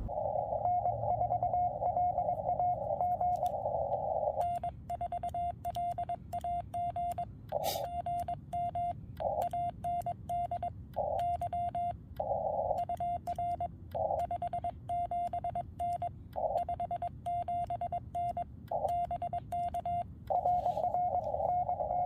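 Morse code from a portable HF transceiver: a steady single-pitched CW tone keyed on and off in dots and dashes, with sharp clicks at many of the keyings. At the start, near the end and in short stretches between, the narrow hiss of the receiver's CW filter surrounds the tone.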